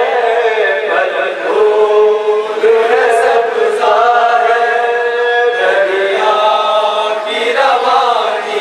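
Group of men chanting a noha, an Urdu mourning lament, together: a lead voice with many voices joining in, in long held notes.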